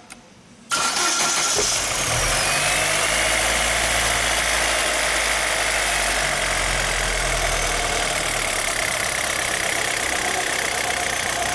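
Chevrolet Zafira 2.0 engine started, catching under a second in with a brief falling whine, then idling steadily. It runs free of the earlier metallic water-pump noise, the pump having been replaced because of play in its shaft.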